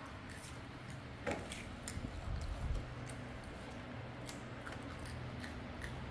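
Small scattered clicks and crunches of baby macaques chewing fruit and handling the pieces, over a low steady hum, with a sharper click about a second in and a dull low bump near the middle.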